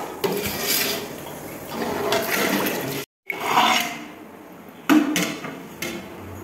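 Water splashing and sloshing in a large aluminium pot of tomato masala as the water for the rice is added. The sound cuts off suddenly about three seconds in. After that it is quieter, with a few light metal clinks.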